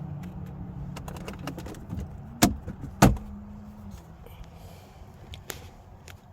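A small electric motor hums steadily, then come two loud, sharp knocks about half a second apart. After them a steady hum runs for under a second, followed by a few faint clicks.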